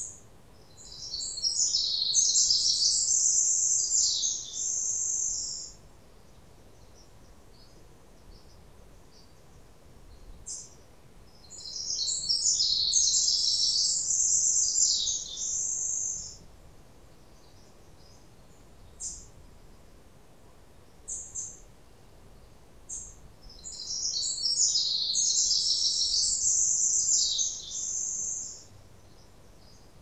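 A songbird singing a long, high song made of a rapid jumble of notes, three times, each song lasting about five seconds and coming roughly every twelve seconds. Single short chirps fall in between.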